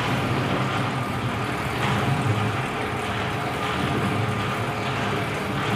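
Stainless-steel ribbon mixer driven by a 2 hp single-phase electric motor, running steadily as its steel ribbon churns a batch of soap noodles: a constant mechanical hum with a faint steady whine.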